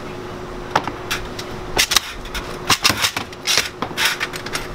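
Sharp metal clacks and rattles in pairs about a second apart, from an antique hand-operated hard-candy chopper being worked, with hard candy pieces clattering on its grooved metal bars. A faint steady hum runs underneath.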